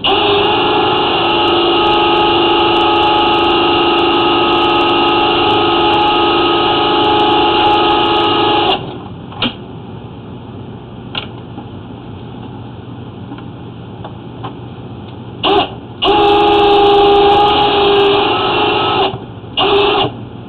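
Flex-shaft drain cleaning machine running, its motor spinning a chain cutter to cut a tree root inside a clay sewer line. It makes a steady whine for about nine seconds, stops, then runs again in short bursts and a three-second run near the end.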